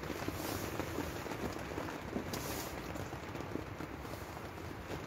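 Heavy rain pattering steadily on the fabric of a tent, heard from inside.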